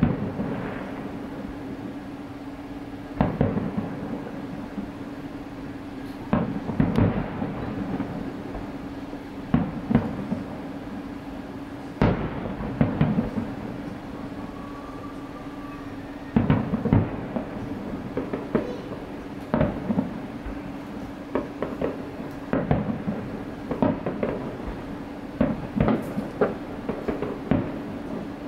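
Distant aerial fireworks shells bursting, a boom every two or three seconds, each one trailing off in an echo, over a steady low hum.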